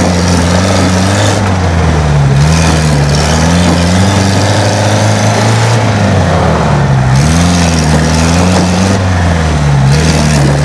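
Lifted 4x4 pickup truck's engine working under load as the truck crawls through snowy mud ruts, its revs rising and falling several times with the throttle.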